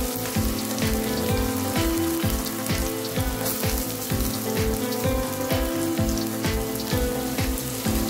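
Chopped onions sizzling in hot coconut oil with curry leaves in a steel pan, a steady frying hiss under background music with a steady beat of about two thumps a second.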